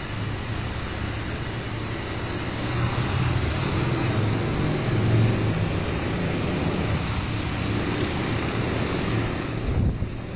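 Bombardier Talent electric multiple unit pulling away over the tracks: a steady rumble with a low hum, a little louder a few seconds in.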